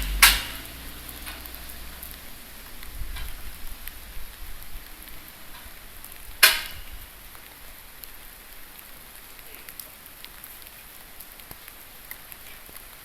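Steel scaffolding being dismantled: two sharp metal clanks about six seconds apart, the second the loudest, over a steady hiss, with a brief low rumble about three seconds in.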